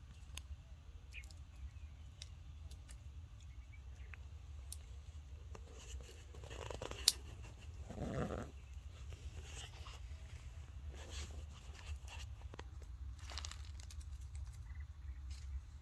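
A baby monkey giving a brief, faint cry about eight seconds in, amid dry leaves rustling and crackling under it and the hand handling it; a sharp click just before the cry is the loudest sound.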